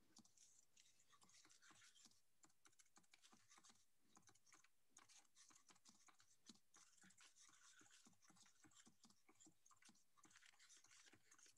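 Faint typing on a computer keyboard: many quick, irregular key clicks with a short pause about halfway.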